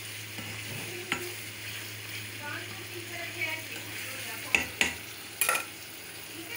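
Chicken pieces and green chilies sizzling as they fry in a pot on a gas stove, with a steady hiss. Several sharp knocks against the pot during stirring, the loudest a cluster of three or four in the second half.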